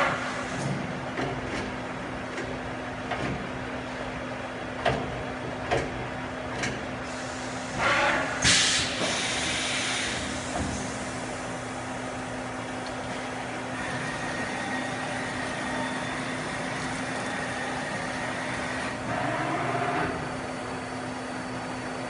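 Akira Seiki Performa V4 CNC vertical machining center running a program, with a steady hum throughout. It gives short hisses of air and sharp clunks near the start and again about 8 seconds in, as a tool change goes through. Later, a faint steady whine comes in as the axes drive the table.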